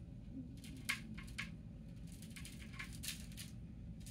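A cat batting a small toy on a hardwood floor, giving a scatter of light clicks and taps. There is one sharp click about a second in, two more soon after, and a quicker cluster in the second half, over a low steady room hum.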